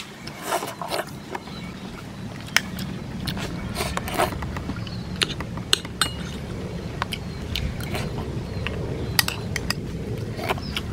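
Eating sounds: irregular sharp clicks and clinks of a metal spoon against a ceramic plate, mixed with chewing, over a steady low rumble.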